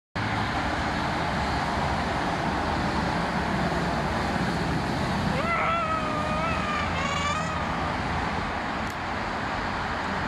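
Steady traffic noise of heavy trucks and cars passing on a busy road, with a low diesel engine hum. About five seconds in, a wavering high-pitched squeal sounds twice, for about two seconds in all.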